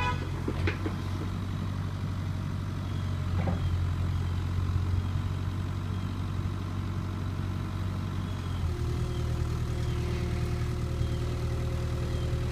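Bobcat E42 mini excavator's diesel engine running steadily while the arm and bucket dig, with a couple of short knocks early on the left and the engine note shifting about two-thirds of the way through.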